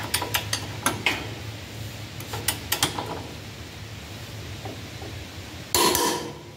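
A half-inch drive torque wrench ratcheting in short runs of sharp clicks as a bolt is torqued to 100 foot-pounds. A single louder metallic clack with a brief ring comes near the end.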